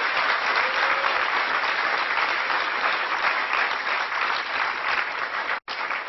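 Audience applauding steadily, with the sound cutting out for an instant near the end.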